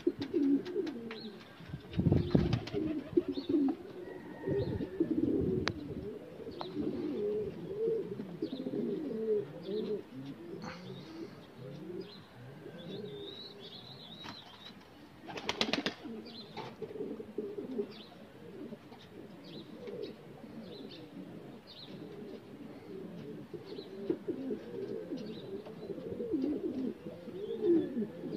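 A flock of domestic pigeons cooing continuously, with short high chirps of small birds scattered over it. A brief rush of noise comes about halfway through.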